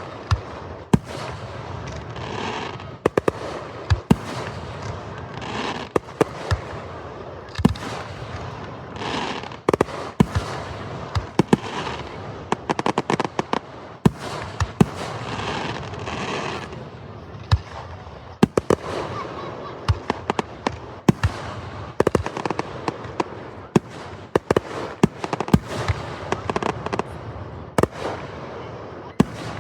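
Fireworks display: a steady run of sharp bangs from bursting shells, coming thick and fast in clusters, over a continuous crackle and hiss.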